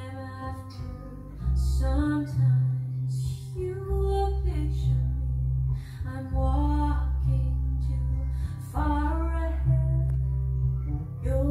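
A song played back from cassette on a Pioneer CT-W204 twin cassette deck: a woman singing over guitar and a strong bass line.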